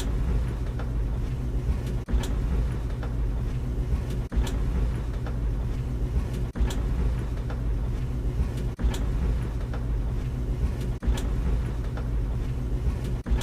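Tumble dryer running with a steady low rumble, broken by a brief dip and a sharp click about every two seconds.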